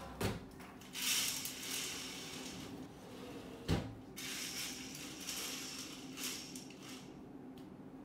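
Household objects being handled: two knocks, one just after the start and one a little before the middle, with rustling in uneven spurts around and between them.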